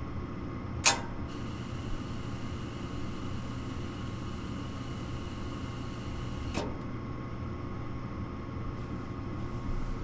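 Gas furnace's gas valve clicks open about a second in, then unlit gas hisses through the burner orifices for about five seconds until a second click as the valve shuts off, with the draft inducer motor humming steadily underneath. The valve clicking and the gas hissing with no ignition point to a dead hot surface igniter rather than a gas valve fault.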